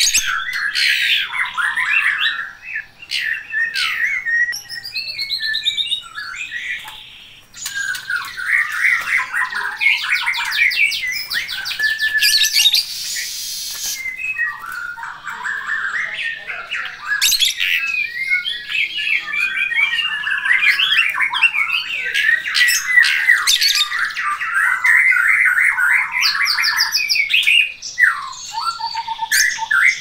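Caged lovebirds chattering: a dense, shrill run of chirps and squawks, with a short lull about six seconds in and fast trills a few seconds later.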